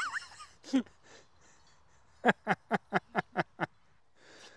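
A person laughing: a run of about seven quick ha-ha syllables, each dropping in pitch, starting about two seconds in, after a brief vocal sound at the start.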